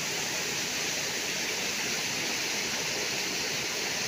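Steady rush of flowing water in a rocky mountain stream, with a small waterfall running just upstream.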